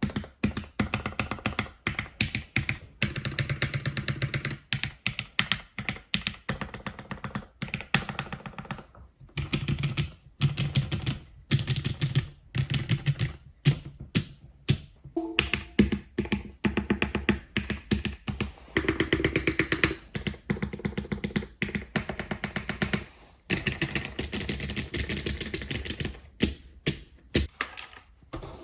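Fast, continuous typing on a mechanical keyboard with lubed Cherry MX Black linear switches on an aluminium plate: a dense stream of keystrokes with a few brief pauses.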